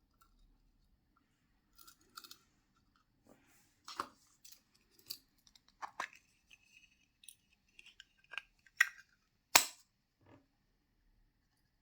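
Small packaging being handled and opened by hand: scattered plastic crinkles, light clicks and taps, with a sharp snap near the end as the loudest sound.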